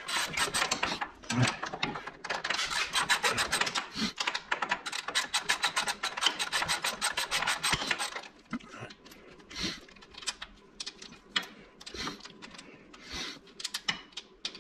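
Ratchet wrench clicking in a fast, even run of about eight clicks a second for some six seconds, as the nut on a lower control arm bolt is worked loose. Then slower, scattered clicks and light metal knocks.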